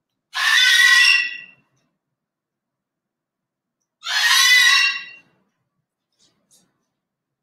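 A parrot screaming twice, two harsh calls each just over a second long, about three and a half seconds apart. The scream is a sign of anxiety.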